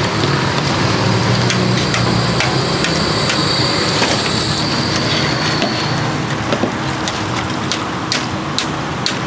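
Banana fritters deep-frying in a large fryer of hot oil, a steady sizzling hiss. A low steady hum runs underneath and fades about six seconds in. After that come a series of sharp clicks and pops as the wire skimmer works in the oil.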